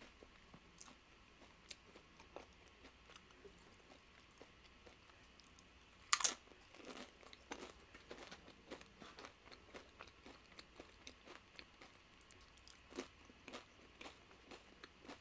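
Close-miked crunching and chewing of tortilla-chip nachos: soft chewing clicks, one sharp crunching bite about six seconds in, then steady chewing.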